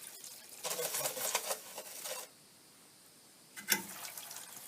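Parts of an opened window air conditioner being handled: a rattling scrape for about a second and a half, then a sharp click.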